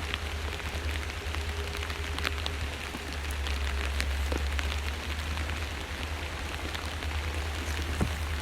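Steady rain falling, with scattered drops ticking sharply close by, over a steady low rumble.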